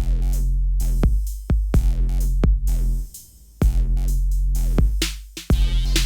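Electronic music with a heavy drum-machine beat and deep bass, cutting out briefly twice.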